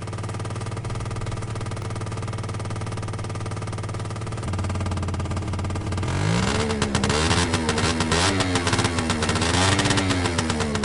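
Gilera Runner scooter engine idling steadily on a cold start, then revved up and down several times with the throttle from about six seconds in, settling back near the end.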